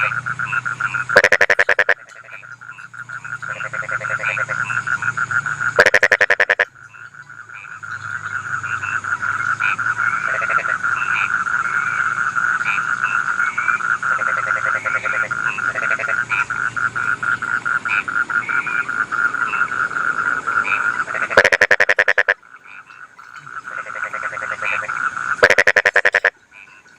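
Paddy-field frogs calling in a chorus, a fast pulsing trill running on steadily, while a louder nearby frog breaks in four times with short rapid-pulsed croaks under a second long.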